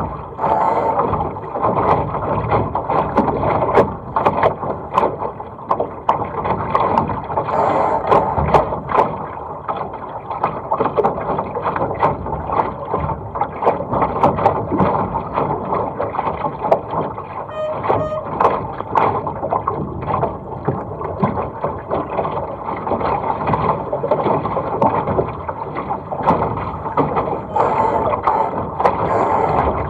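Laser sailing dinghy's hull driving through choppy water, heard from on deck: a continuous rush of water and spray along the hull, broken by frequent slaps and knocks as it hits waves. There is a brief squeak a little past the middle.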